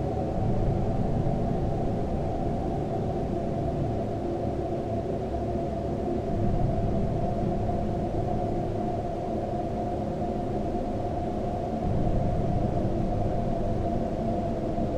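Dark ambient drone: a steady low rumble with faint held tones layered over it, swelling slightly about six and twelve seconds in.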